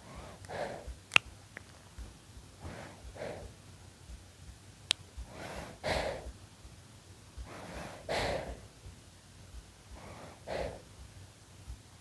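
Six-month-old baby breathing in sleep, close to the microphone: soft breaths every two to three seconds, some louder and snuffly. A sharp click about a second in and another about five seconds in.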